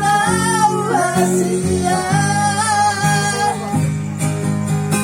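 Music: a singer holds long, wavering notes over a plucked guitar accompaniment. The voice drops out about three and a half seconds in, and the guitar plays on.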